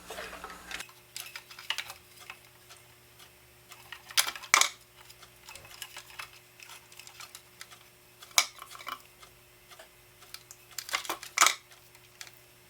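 Scattered sharp clicks and clinks of small tools and wires being handled while a power cord is wired up, over a faint steady electrical hum. The loudest clicks come about four seconds in and again near the end.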